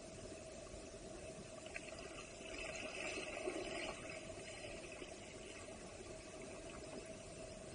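Moving creek water heard underwater: a steady, muffled rush of flowing water and bubbles. It swells for a second or two about halfway through as a swimmer kicks near the surface.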